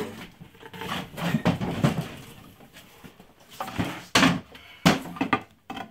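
Wooden louvered closet doors and things around them being handled and shifted, with clatters and a few sharp knocks; the loudest two knocks come about four and five seconds in.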